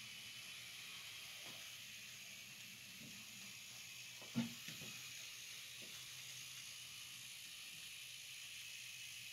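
Model diesel train running on layout track: a faint steady hiss and low hum, with a few soft clicks from the wheels on the rails, the sharpest about four and a half seconds in.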